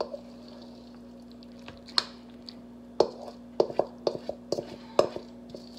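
Sharp taps and knocks of a utensil and a stainless steel mixing bowl as egg salad is scraped out into a plastic container: single knocks about two and three seconds in, a quick cluster of them near the four-second mark, another about five seconds in. A steady low hum runs underneath.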